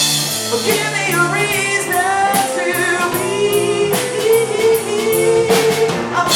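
Live rock band playing with drums, guitar and a sustained sung vocal line without clear words.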